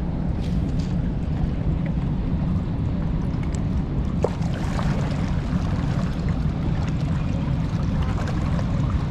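Steady rush of fast, turbulent river water below a dam, a constant deep roar.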